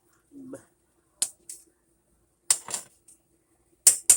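Sharp clicks and light taps of objects being handled, about six of them, mostly in pairs, over a faint steady hum. A brief hum of a voice comes near the start.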